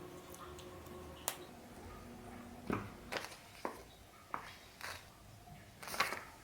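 Scattered light clicks and knocks of small objects being handled, about eight in all, the sharpest a little after a second in and the loudest near the end, over a faint steady hum.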